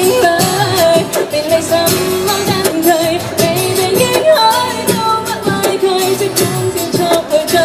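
A young female singer singing a pop song over instrumental backing with a steady beat.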